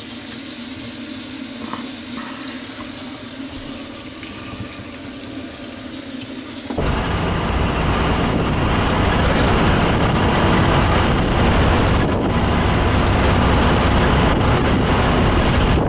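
Steady rush of tap water running into the sink and down the drain. About seven seconds in it changes abruptly to louder, steady wind and road noise from inside a moving vehicle with the window open.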